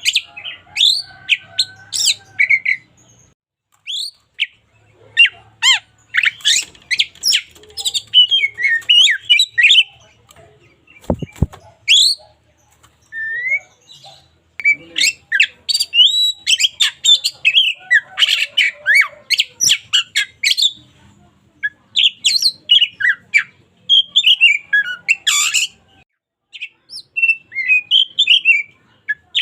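Oriental magpie-robin (kacer) singing in full voice: fast, varied phrases of whistles, chirps and harsher notes, with short pauses between bursts. A single sharp click about eleven seconds in.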